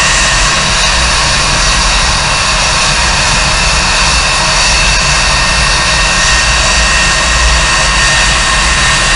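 Jet fighter's twin jet engines running steadily at low power on a carrier deck: a loud, continuous jet roar with a high, steady whine.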